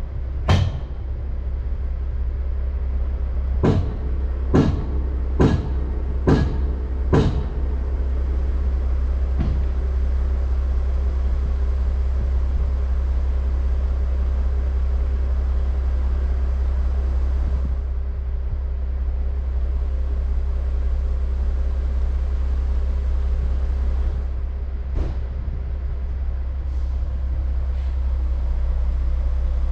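Diesel engine of a stationary log truck idling steadily. Over the first several seconds a run of sharp knocks sounds about once a second, then fades to an occasional faint one.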